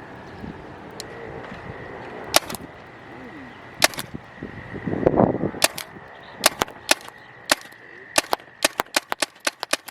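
Paintball gun firing: single shots a second or more apart, then quickening into a rapid string of shots over the last couple of seconds. A faint steady high tone runs underneath.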